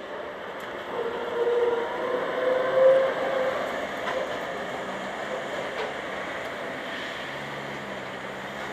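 SSB GT4 articulated tram running close past on its rails. It grows loudest about three seconds in, with a whine that rises slightly in pitch, then fades to a steady rumble.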